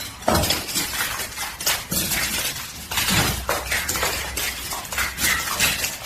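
Hard objects clattering and clinking, glass-like, in a dense run of irregular sharp knocks.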